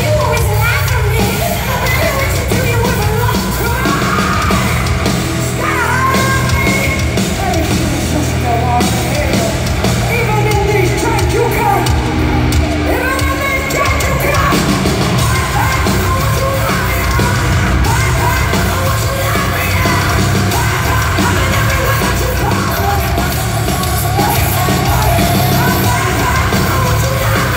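A heavy metal band playing live at full volume: distorted guitar and drums under a yelled and sung female lead vocal, with the echo of a large hall.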